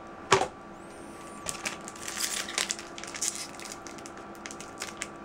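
Foil booster-pack wrapper being torn open and crinkled by hand: a sharp tick near the start, then a run of short, crisp crackles.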